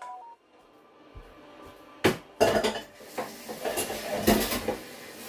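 Kitchen pans and cutlery clattering: after a quiet first second, a sharp knock about two seconds in, then a run of clinks and clatters.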